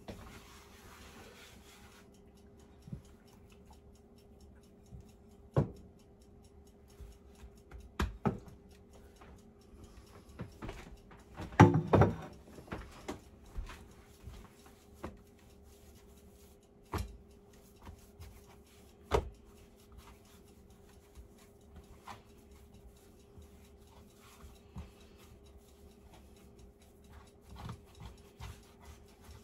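Hands kneading and rolling dough on a floured wooden cutting board: scattered soft knocks and taps against the board, with a louder cluster of knocks about twelve seconds in, over a faint steady hum.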